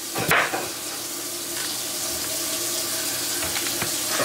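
A single knife chop on a plastic cutting board just after the start, then a steady hiss with light water sounds and faint ticks as raw potatoes are taken from a bowl of water.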